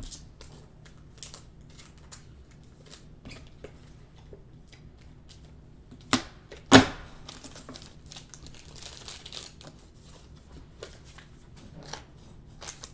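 Trading cards and plastic card holders being handled: scattered soft clicks and rustles, with two louder sharp clicks a little past halfway.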